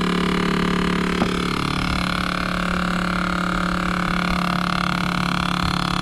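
Steady mechanical hum and whir inside a running 2010 Honda Pilot, with a faulty HVAC door actuator behind the dash making the interior noise. There is a single click about a second in.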